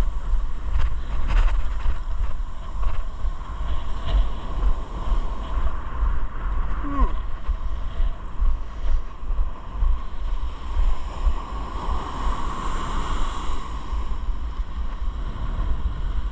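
Wind buffeting the microphone with a steady low rumble, over the wash of ocean surf breaking on the beach.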